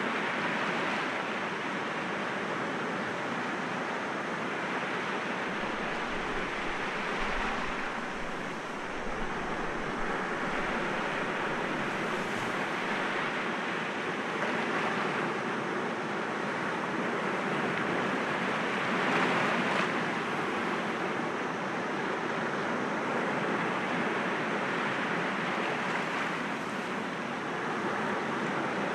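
Sea waves breaking gently against rocks: a continuous wash of surf that swells and eases every several seconds.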